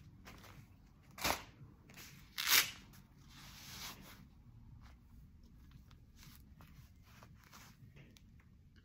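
Hook-and-loop wrist strap of a Reusch Attrakt Gold X Evolution Cut goalkeeper glove being pulled open and pressed shut: two short sharp rips about a second apart, then a softer rasp and faint rustling of the glove.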